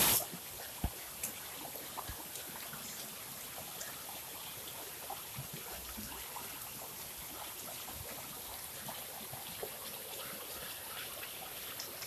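Muddy rainwater runoff flowing fast down a dirt channel: a steady rush of water with many small scattered splashes. A short loud burst of noise at the very start.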